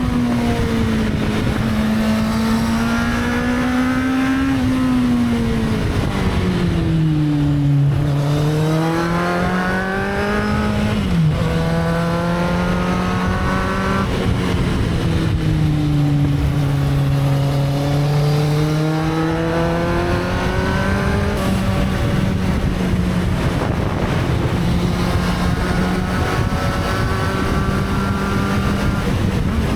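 Motorcycle engine running under way, its note rising and falling in long sweeps as the throttle opens and closes. About eleven seconds in the pitch drops abruptly, as at a gear change. A steady rush of noise runs beneath it.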